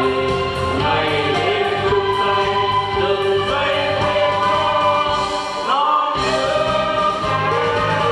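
A choir of women and men singing together into microphones over a musical backing, holding long notes. The low backing drops out for a moment about six seconds in.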